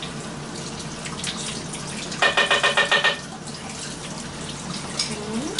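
Kitchen sink tap running steadily while raw chicken is rinsed under it. About two seconds in, a rapid trilling ring cuts across it for about a second.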